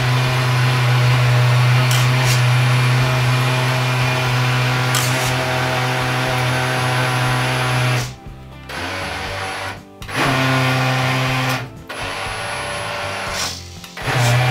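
Electric motor of a homemade radio-controlled bait boat driving its propeller in a bathtub of water: a steady hum with water churning. In the last seven seconds the motor cuts out briefly four times, starting up again after each stop.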